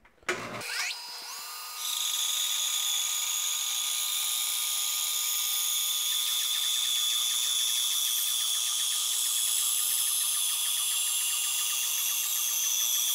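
Bandsaw switched on and spinning up, then resawing a block of hickory, a very hard wood: a steady, loud hiss of the blade cutting through the wood, with fine even ticking and a steady motor hum under it.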